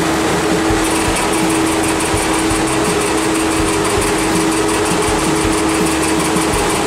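Car-wash floor-mat brushing and vacuum machine running as a floor mat is fed into it and worked back and forth: a steady motor hum over a loud, even hiss.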